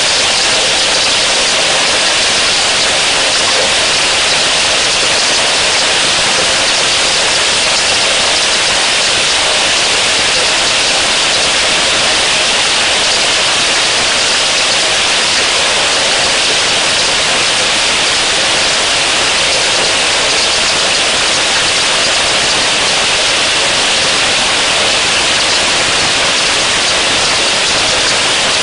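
Heavy rain falling steadily over a pond and the surrounding bush: a loud, even hiss with no let-up.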